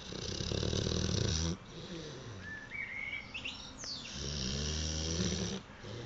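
Boxer dog snoring: two loud, rattling snores a few seconds apart, with a thin rising whistle between them.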